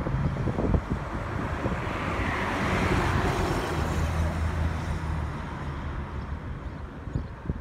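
A car driving past on the road, its tyre and engine noise swelling about two seconds in and fading away over the next few seconds, with wind buffeting the microphone.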